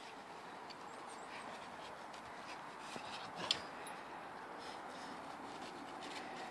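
Golden retriever burrowing and rolling in snow: soft scraping and crunching of snow over a faint steady hiss, with a sharp click about three and a half seconds in.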